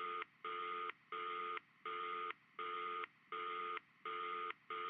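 Telephone tone beeping in a steady run of identical beeps, each about two-thirds of a second long with short gaps between.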